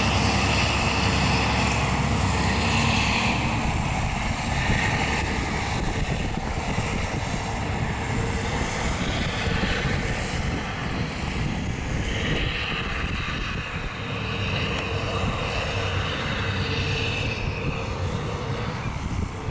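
John Deere tractor engine running steadily under load as it pulls a Pöttinger twin-rotor grass rake through mown grass, with a higher whine coming and going over the engine hum.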